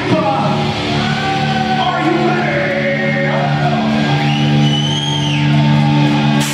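Live heavy metal band: distorted electric guitars and bass hold a sustained chord while a singer sings a gliding line over it, rising to a long high note about four seconds in.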